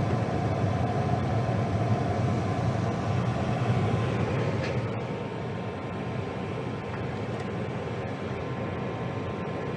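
Gas furnace firing just after ignition: burners lit and the draft inducer motor running, before the blower motor starts. A steady low rumble with a faint hum, easing slightly about halfway through.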